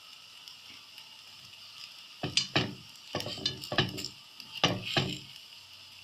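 Thin crepe batter sizzling faintly in a pan, with a utensil scraping and knocking against the pan in three short bouts from about two seconds in, working the crepe loose before it is flipped.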